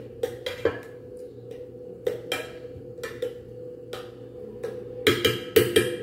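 Metal spoon tapping and scraping against a glass baking dish while spreading cream, in irregular clicks, with a cluster of louder knocks near the end, over a faint steady hum.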